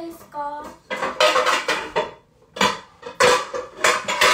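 Kitchen pots, pans and utensils clattering as they are handled, in several bursts from about a second in, with a faint ringing of metal through them.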